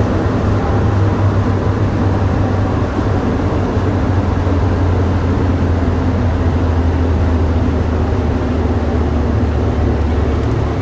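Montreal Metro rubber-tyred train running at speed through the tunnel: a loud, steady low rumble.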